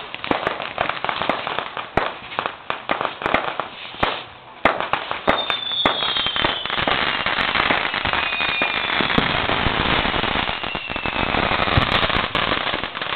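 Fireworks and firecrackers going off: rapid pops and bangs throughout, thickening about five seconds in into a continuous crackling hiss with a few falling whistles.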